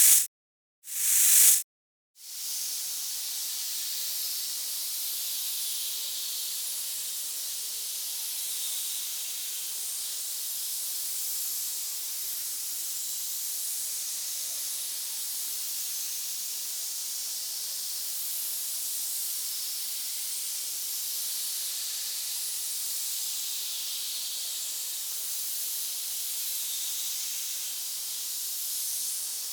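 Snake hiss sound effect: two short, sharp hisses about a second apart at the start, then one long, steady, high-pitched hiss that holds unbroken.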